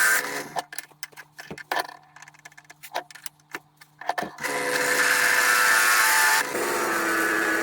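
A small power tool runs, then stops. For about four seconds there are only light clicks and knocks. It then starts again and runs steadily, dropping to a lower, even tone about six and a half seconds in.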